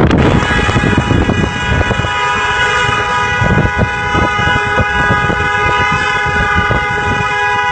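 A car horn held down in one long unbroken blast, starting a moment in, over the low rumble of a moving car with wind on the microphone.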